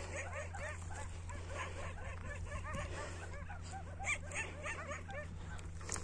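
Dogs whimpering and yelping: many short, overlapping cries repeating without pause, over a steady low hum.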